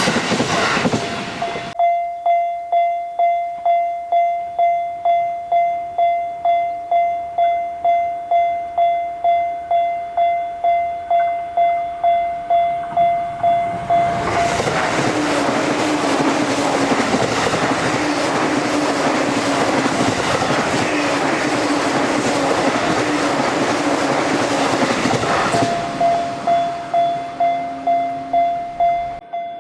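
Japanese level-crossing warning bell ringing its kan-kan strikes, about two a second. About 14 seconds in, a JR Sobu Line train runs through the crossing for about ten seconds, its running noise covering the bell, and the bell is heard again near the end. The tail of another train's passing noise is heard at the very start.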